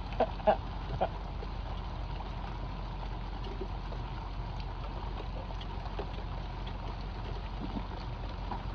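Steady rain falling on the river surface, with a low rumble underneath. A few short knocks come in the first second.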